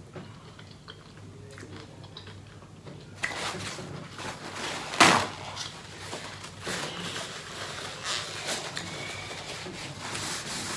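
Faint mouth and finger-licking sounds of eating, then paper towels rustling and crinkling as they are handled, with a sharp crackle of paper about five seconds in.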